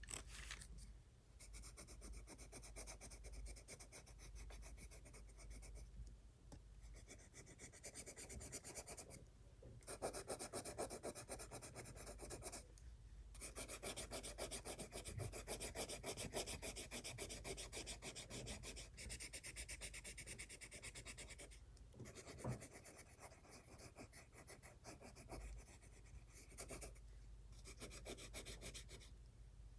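Colored pencil shading on spiral-bound sketchbook paper: a faint, steady scratchy rubbing from rapid back-and-forth strokes. It stops briefly several times as the pencil lifts off the page.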